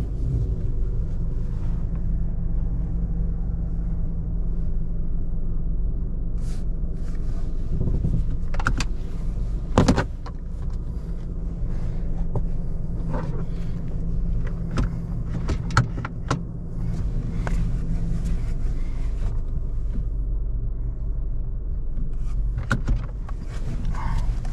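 A vehicle engine running steadily, with scattered clunks and clicks and one sharp knock about ten seconds in.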